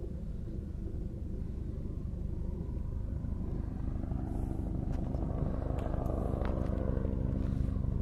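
A motor vehicle's engine droning steadily and growing gradually louder. A few faint footsteps on the dirt trail join in from about halfway through.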